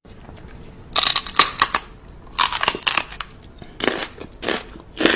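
Chihuahua snarling and snapping its teeth: short raspy bursts full of clicks, coming in about five clusters starting about a second in.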